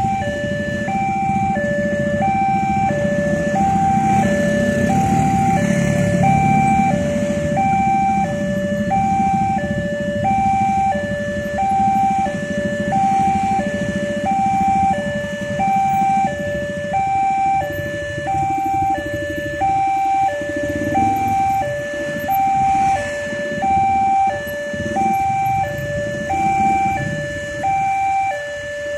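Level-crossing warning alarm sounding a steady alternating high-low two-tone, about one high-low pair a second, with a low rumble underneath that is heavier in the first half.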